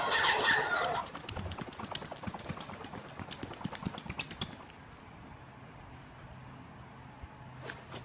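Paws tapping and scratching on a tablet's glass screen: a quick run of light, irregular taps that thins out about halfway through.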